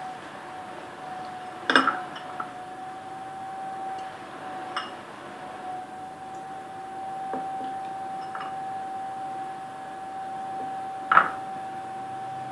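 Clinks and knocks on a glass baking bowl as it is handled: two sharp ones, about two seconds in and near the end, with a few lighter ticks between. A steady high hum runs underneath.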